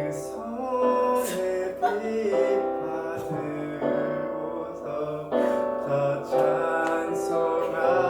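Christmas carol praise medley sung over a piano-led backing track.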